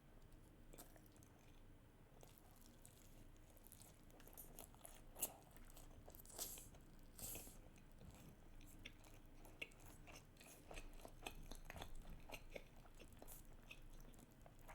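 Faint close-up chewing of salmon sushi rolls, with scattered short wet mouth clicks and a few louder crunches.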